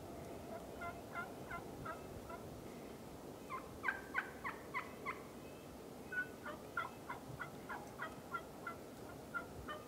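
Wild turkeys calling: three runs of short, sharp notes at about three a second, the loudest run about four seconds in.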